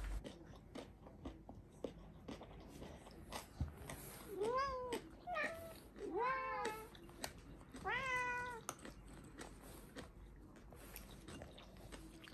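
Domestic cat meowing four times, between about four and nine seconds in, begging as treats are handed out, with light clicks and taps throughout.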